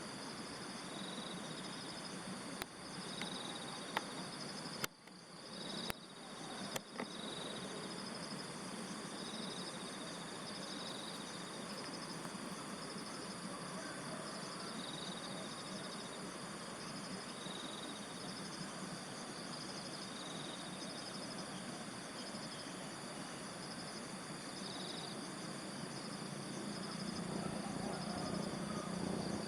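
Insects chirping steadily in rural night-time ambiance after rain: a continuous pulsing high trill, with a short higher chirp repeating every second or two. A few sharp clicks sound in the first seven seconds, and a low rumble builds near the end.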